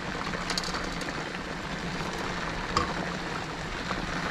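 Hot water bubbling and hissing over rice parched in oil in a wide pan, stirred with a wooden spoon, over a steady low hum. A single light knock comes near the three-second mark.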